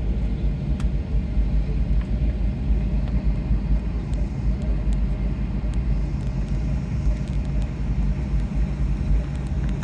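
Cabin noise of a Boeing 737-800 rolling along the ground after landing: a steady low rumble from its engines and landing gear, with a few faint clicks.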